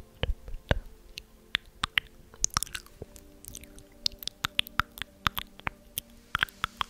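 Irregular quick clicks and pops close to the microphone, a few a second and coming thicker in the second half, over faint steady low tones.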